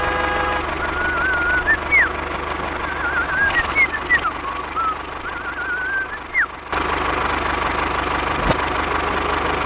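Steady tractor-style engine idle, a low even knocking run, with short warbling chirps over it for the first two-thirds. The sound changes abruptly a little before the end.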